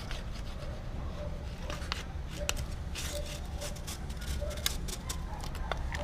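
Scattered light clicks and taps of an aluminium drink can being handled and fitted onto a motorcycle exhaust pipe, over a steady low background hum.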